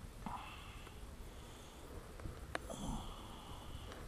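Faint, quiet noises: a short breathy rush near the start, then a single sharp click about two and a half seconds in, followed by a brief hiss.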